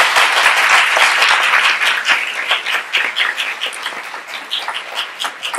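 Audience applauding: dense clapping at first that thins out into scattered individual claps and fades toward the end.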